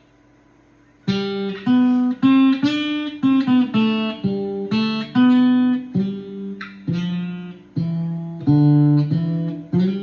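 Octave mandolin tuned in fifths, picking a melody note by note, starting about a second in, with the last note left ringing at the end.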